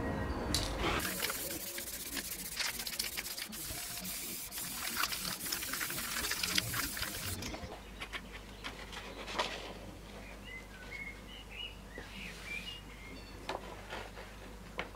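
Aerosol spray can hissing for about six seconds, then stopping. Afterwards, sheets of paper rustle and birds chirp briefly.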